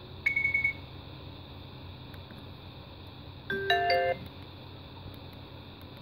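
Nokia 5200 phone speaker giving a short, high electronic beep, then about three seconds later a brief chime of a few electronic notes sounded together, like a short alert tone.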